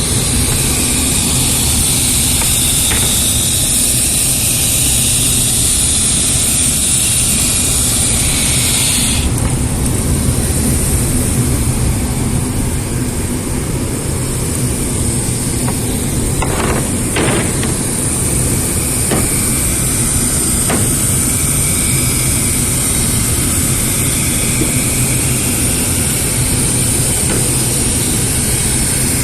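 Woodworking wire-drawing machine running steadily, a constant machine hum under a strong high hiss. About nine seconds in, part of the hiss drops away, and a few faint knocks follow later.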